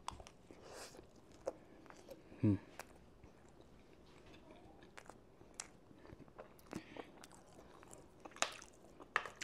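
Close-up eating sounds of a person chewing biscuits and gravy: scattered soft, wet mouth clicks and chewing, with a brief hum about two and a half seconds in.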